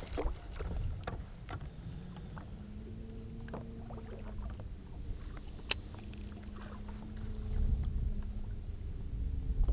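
Low wind and water noise around a small fishing boat, with a faint steady hum from about two seconds in. Scattered light clicks and knocks run through it, with one sharp click just past the middle.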